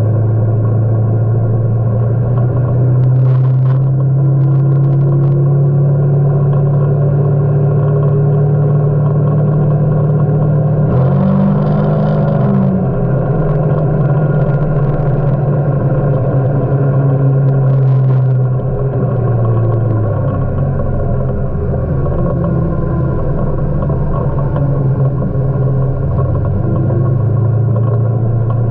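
Kawasaki Teryx4 side-by-side's V-twin engine running under way, its pitch rising and falling with the throttle, with a short rev about halfway through. A few brief knocks and rattles come through over the engine.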